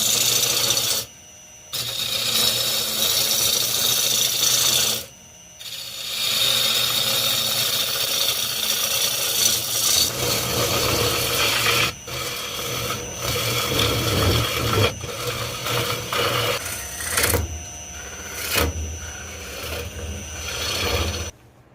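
Tools working wood: a continuous rasping, grinding scrape that cuts out briefly twice in the first few seconds. About halfway through it turns into rougher, uneven strokes over a steady high whine.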